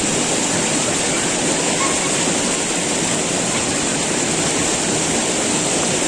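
Steady rush of flowing river water, an even continuous noise without a break.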